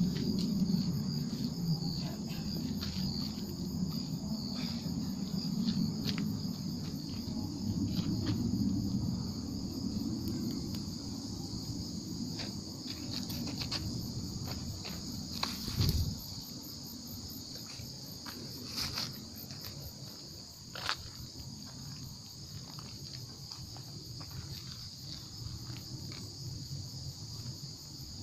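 Steady chorus of crickets and other insects, a shrill even trilling with a fast pulse on top. A low rumble runs through the first half and drops away after a thump about sixteen seconds in, with scattered clicks throughout.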